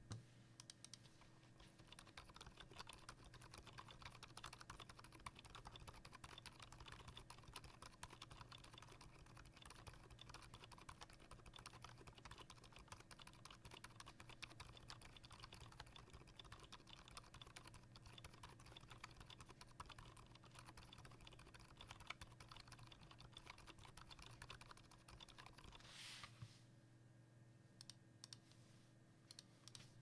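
Faint, continuous typing on a KBD75V2 mechanical keyboard with a brass plate, lubed Gazzew Boba U4 silent tactile switches and thick PBT dye-sub keycaps: a fast, unbroken run of keystrokes. About four seconds before the end the typing stops with one louder knock, followed by a few scattered key presses.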